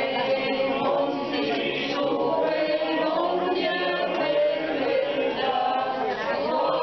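A group of voices singing a song together without instruments, in unison like an informal choir.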